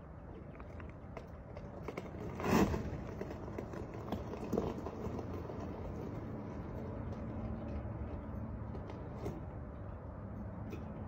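GMC 401 V6 with a Holley 4412 carburettor idling steadily after a cold start, a low, even rumble. A brief louder rushing noise about two and a half seconds in.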